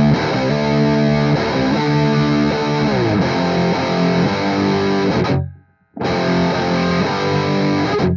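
Heavily distorted electric guitar playing chugging chords with multi-note hammer-ons (a 'slap attack'). It cuts off abruptly about five and a half seconds in, with a brief silent stop that breaks up the chords, then starts again and stops short once more at the end.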